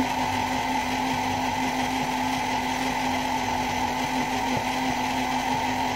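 Electric countertop blender running steadily, its motor humming evenly as it blends a milk, ice cream and banana shake.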